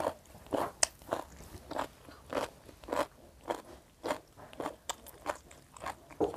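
A person chewing crunchy boiled pig intestine close to a clip-on microphone: a steady run of crunches about twice a second.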